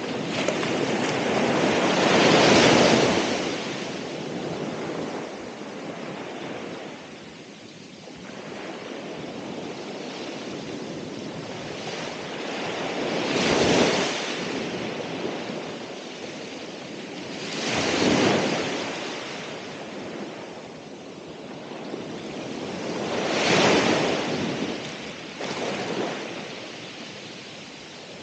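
Ocean waves breaking on the shore: four surging washes of surf, each swelling and fading away, a few seconds apart, with a softer hiss between them.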